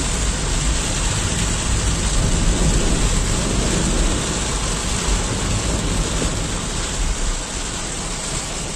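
Heavy rain falling on a car's roof and windshield, heard from inside the car as a steady, dense noise with a strong low rumble.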